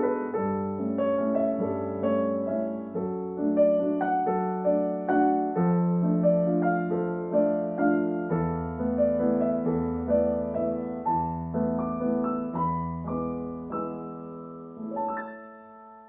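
Background piano music: a gentle melody with a sustained bass line. Near the end it settles on a final note that fades out.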